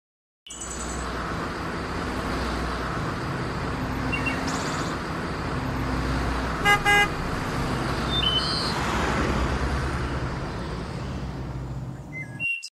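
A car horn gives two short toots, the loudest sound here, over a steady low engine rumble and outdoor background noise.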